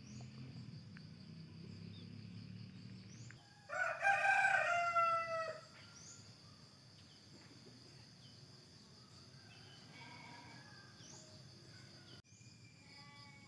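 A rooster crowing once, about four seconds in, a loud call of roughly two seconds. Behind it run a steady high-pitched tone and a few short bird chirps.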